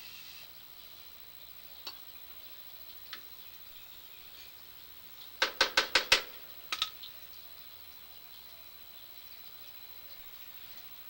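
A quick run of about six sharp knocks a little past halfway through, then two more close together, with a few single faint clicks elsewhere.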